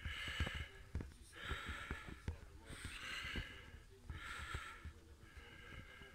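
A person breathing close to the microphone, a soft hiss about every second and a half, with faint knocks from a hand handling a heavy eyepiece.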